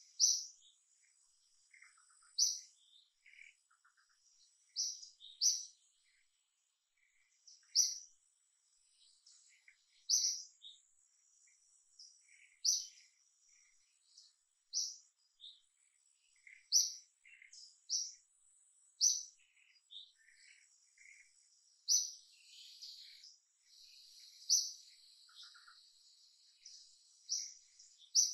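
Birds chirping in short, sharp, high notes repeated every second or two, with a thin, steady insect buzz joining near the end.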